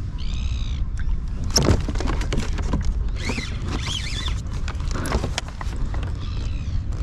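Fishing reel's drag whining in short bursts, rising and falling in pitch, as a hooked fish pulls line off, with knocks and clicks from the rod being pulled from its holder in between.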